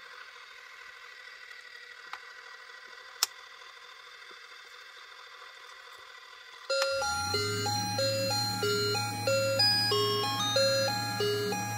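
Avon Christmas carousel snow globe being switched on: two sharp clicks at its base, then about seven seconds in a chiming electronic Christmas melody starts from its built-in speaker over a steady low hum as the snow begins to blow.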